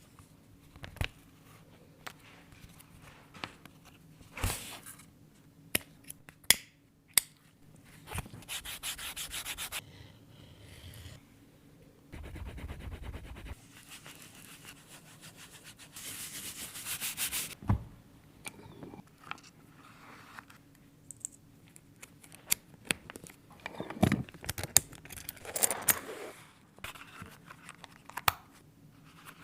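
Leather being worked by hand: several stretches of rubbing across the leather, each a second or two long, between scattered sharp taps and clicks of tools.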